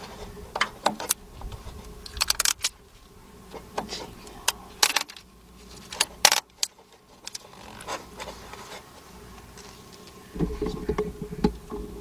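Gloved hands handling a handheld automotive multimeter, making scattered sharp plastic clicks, taps and rubbing, over a steady electrical buzz. A louder low hum comes in near the end.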